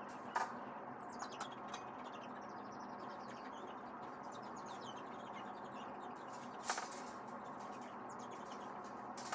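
Metal wire exercise-pen panels clanking as they are lifted and set in place: a sharp knock about half a second in and a louder one near seven seconds, over a steady run of faint high chirps and squeaks.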